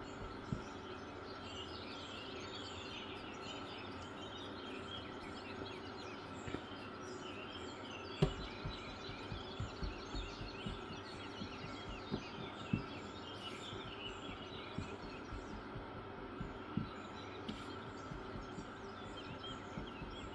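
Birds chirping continually in the background over a steady low hum, with a few soft taps as hands pat and press dough balls flat on a silicone mat.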